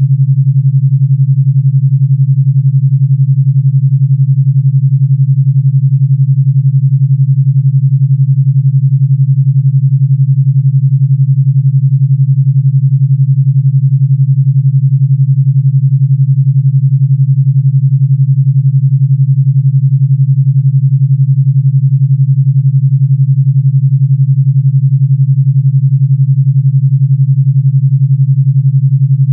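Steady, loud, low pure tone around 141 Hz with an 11 Hz alpha beat, a synthesized brainwave-entrainment tone.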